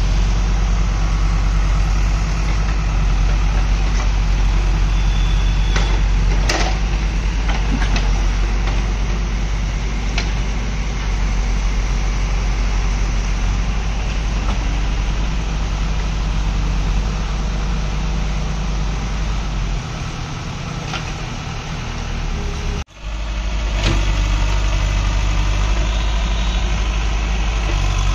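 Diesel engines of JCB 3DX and 2DX backhoe loaders running steadily while digging. A few sharp knocks come about six to ten seconds in, and the sound breaks off for an instant about three-quarters of the way through.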